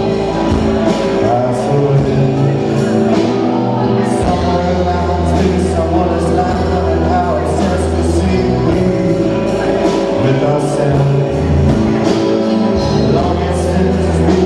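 Live rock band playing an original song, with electric guitar, drums and keyboard under a man's lead vocal.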